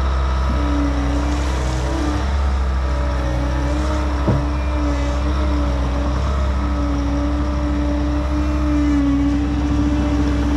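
Bobcat T66 compact track loader's diesel engine running steadily under throttle while working fill, a constant drone with a wavering whine over it. One sharp knock about four seconds in.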